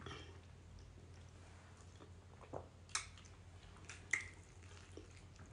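Faint wet chewing and mouth smacks of someone eating pounded yam in black soup, with a few short sharp smacks about halfway through, over a low steady hum.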